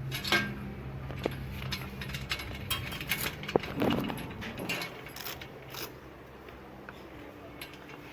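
Irregular metallic clicks and knocks of folding-bike parts and accessories being handled and fitted, thinning out after about six seconds.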